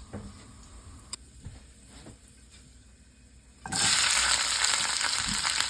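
A few light clicks and taps, then about three and a half seconds in a sudden loud sizzle starts as food goes into hot oil in a pan, and it keeps frying steadily.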